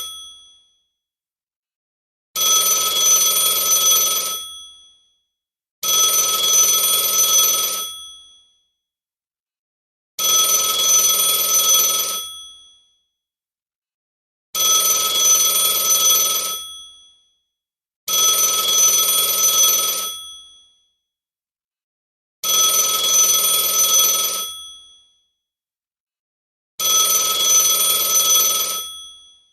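Telephone ringing in repeated rings of about two seconds each, with pauses of about two seconds between them. Seven rings, and each fades quickly as it stops.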